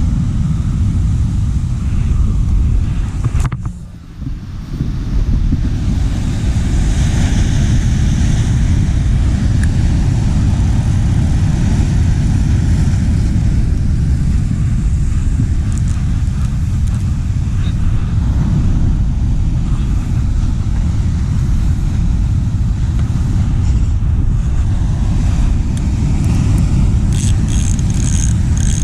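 Wind buffeting the microphone: a steady low rumble that drops away briefly about four seconds in.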